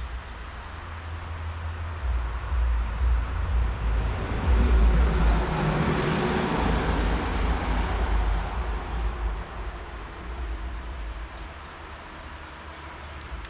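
A motor vehicle driving past, its noise swelling to a peak about halfway through and then fading away.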